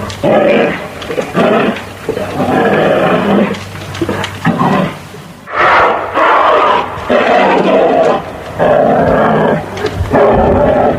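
Large wild animal roaring again and again: about eight loud, rough roars of roughly a second each, with short pauses between them.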